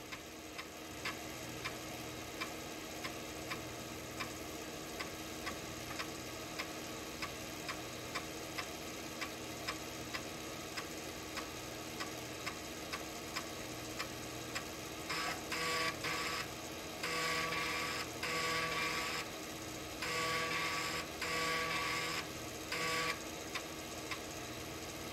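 Floppy disk drive reading during a file copy: a steady series of sharp head-stepping clicks about twice a second, joined from about halfway through by several stretches of louder mechanical buzzing as the drive works through the disk.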